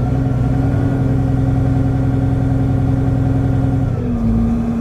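Challenger MT600-series tractor's diesel engine running steadily at light load, heard from inside the cab. A deeper hum underneath sets in at the start and eases off about four seconds in.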